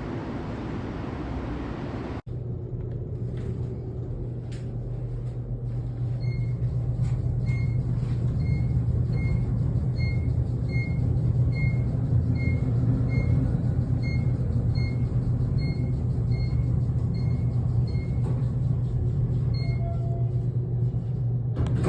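A steady, loud low machine rumble with a high electronic beep repeating about one and a half times a second through most of it. Before this, an even hiss cuts off abruptly about two seconds in.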